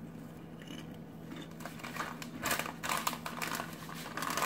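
Crispy Ritz Crisp & Thins chips being crunched while eaten, with the foil-lined chip bag crinkling: irregular crackly crunches and rustles starting about a second and a half in and getting busier toward the end.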